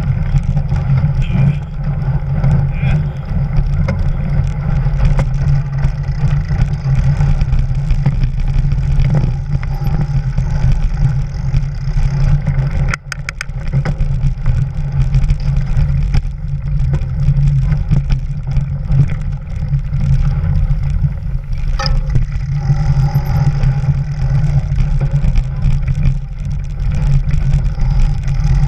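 Mountain bike ride heard from a camera mounted on the bike: a steady low rumble of knobby tyres rolling over snow and rough trail, mixed with wind on the microphone, with a couple of sharp knocks from bumps about halfway through and again later.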